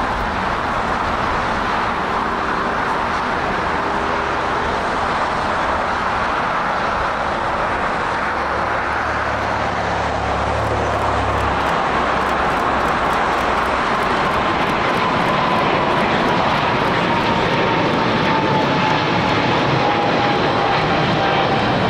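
Jet airliner engines running at high power, a steady loud rush with a whine that slowly falls in pitch over the second half.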